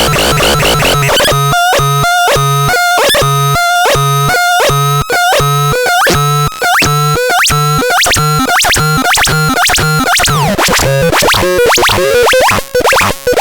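Synthesizer playing a repeating pattern of short electronic bleeps over a low buzzing bass pulse, a little under two pulses a second. The pattern speeds up about two-thirds of the way in, and sliding pitches come in near the end.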